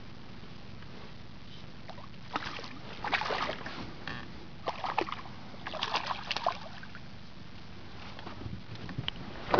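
A hooked fish splashing and thrashing at the water's surface beside the boat in several bursts, over a steady low hum.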